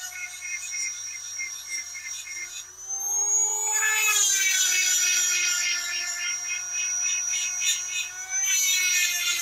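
EzzDoo handheld chainsaw sharpener's small high-speed motor whining as its grinding stone is worked against the teeth of a chainsaw chain. The whine drops back briefly, then rises in pitch and gets louder about three seconds in and holds steady.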